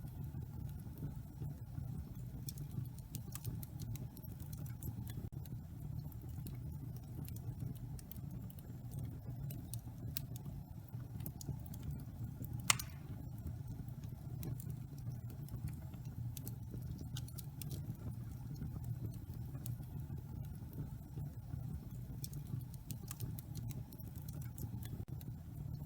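Wood fire burning in a fireplace: a steady low rumble with scattered small crackles, and one louder pop about halfway through.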